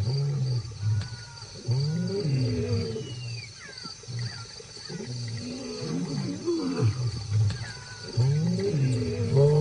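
Lions growling in about four rough, low bouts, each a second or so long, rising and falling in pitch with short gaps between.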